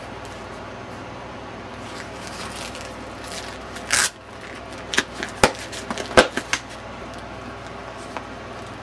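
A hard plastic insert being slid into and handled in a Cordura fabric pouch: rustling and scraping, with a loud scrape about four seconds in, then several sharp clicks and knocks of plastic against the pouch. A steady low hum runs underneath.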